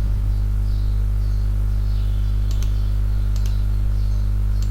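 Steady low electrical mains hum, with a few faint clicks in the second half.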